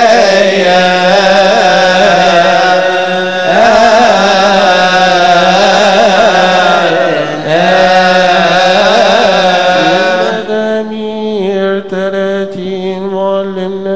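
Coptic Orthodox liturgical chant: voices singing a long melismatic hymn line over a steady held lower note. About ten seconds in the sound thins and settles onto steadier notes.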